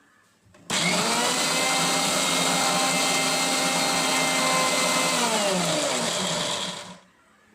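Sansui Pro mixer grinder's motor switched on suddenly, running at a steady high speed for about four seconds, then switched off and winding down with a falling pitch until it stops.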